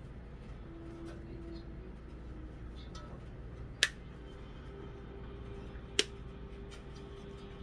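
Two sharp clicks about two seconds apart as a spice jar and a metal measuring spoon are handled while basil is measured out, over a faint steady hum.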